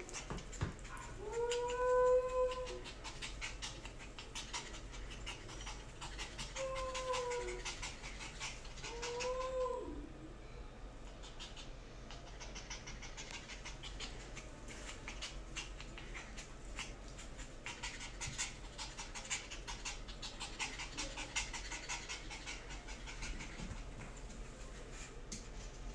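Shiba Inu puppy whining: three short, high, slightly falling cries in the first ten seconds. After that, faint quick scratching and rustling of its paws on a fabric dog bed.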